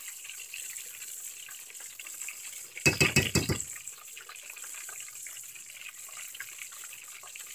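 Coated red snapper and salmon pieces frying in a deep pan of hot oil: a steady sizzle. About three seconds in comes a short, louder clatter as the metal spatula works in the pan.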